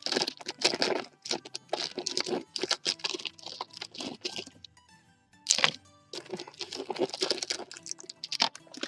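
Hi-Chew candy bag crinkling and crackling as it is pulled open and rummaged through by hand, in irregular bursts, with a sharper crackle about halfway through. Quiet background music underneath.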